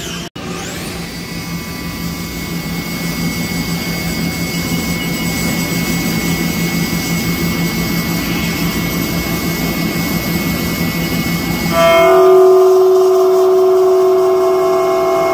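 Haas GR-710 CNC router spindle running an end mill through an aluminium I-beam: a steady hum with hiss that slowly grows louder. About twelve seconds in it changes suddenly to a louder ringing whine of several steady tones as the cut changes.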